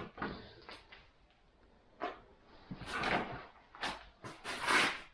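Things being handled and shifted about in a workshop: after a quiet start, a handful of short knocks and scraping clatters.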